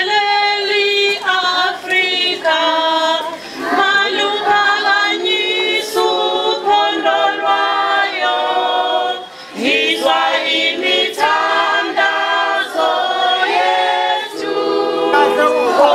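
A large group of children singing together unaccompanied, many voices holding notes and moving from note to note, with a short break about nine seconds in.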